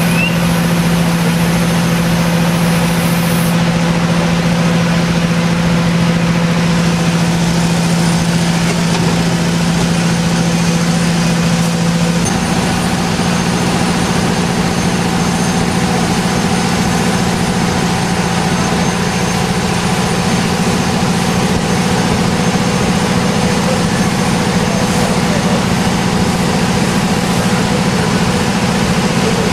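A fire engine's motor running steadily at a working fire, a loud, even hum. Its tone shifts slightly about twelve seconds in.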